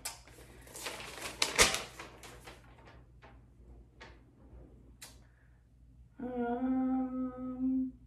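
Paper instruction leaflet rustling and crackling as it is unfolded, with a few small clicks. About six seconds in, a woman hums a steady note for about two seconds.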